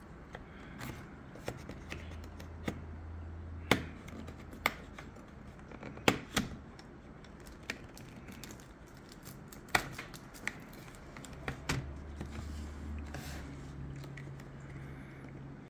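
A pry tool working around the plastic screen bezel of an HP ProBook 640 G2 laptop, making a dozen or so irregular sharp plastic clicks and snaps as the bezel is levered loose.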